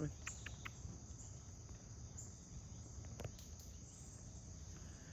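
Steady high-pitched chorus of insects in the background, with a few short faint clicks in the first second and one more about three seconds in.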